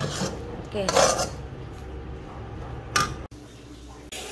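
A spatula scraping and stirring thick sorghum-flour halwa around a metal kadai, with sharp scrapes about a second in and again just before three seconds. The halwa is cooked down to a thick halwa texture.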